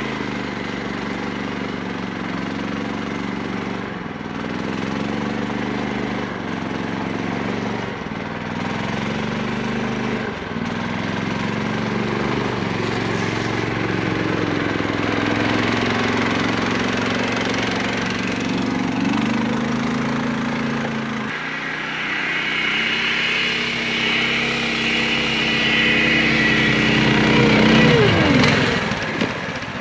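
Snowdog tracked snow machines running through deep snow, the engine note rising and falling repeatedly as the throttle works under load. After about 21 seconds a closer engine carries a high whine, and near the end its revs drop sharply.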